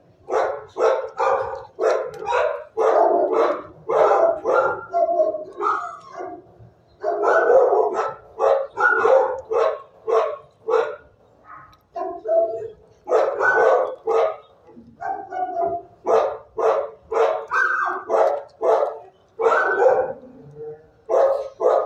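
Dog barking over and over, about two barks a second, with a few short pauses.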